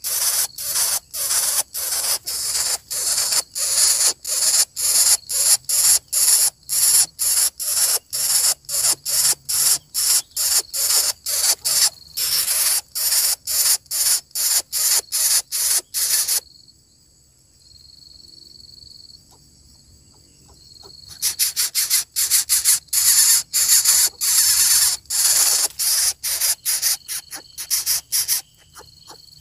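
Greater coucal nestlings begging with rapid raspy hisses, about three a second, which stop for a few seconds midway and then start again.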